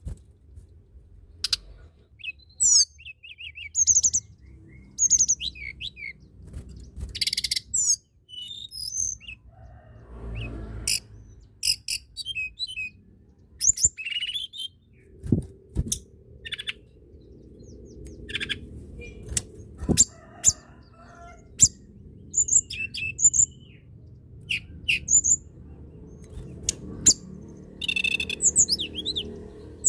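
Tledekan gunung singing: a run of short, sharp, high chirps and quick whistled trills with brief pauses between phrases, over a faint low background rumble.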